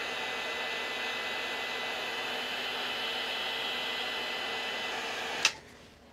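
Battery-powered heat gun blowing steadily, a fan hiss with a faint steady whine, heating the plastic battery case. About five and a half seconds in it stops abruptly with a click.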